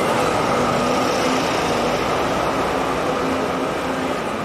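Steady electric hum of a tram with a faint high-pitched whine over constant background noise.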